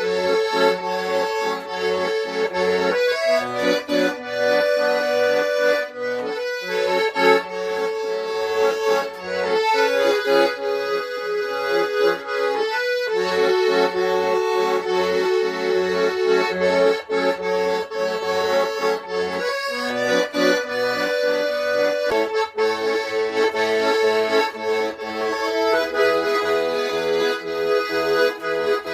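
Garmoshka, a Russian button accordion, playing a continuous folk tune: a melody over an evenly pulsing bass-and-chord accompaniment.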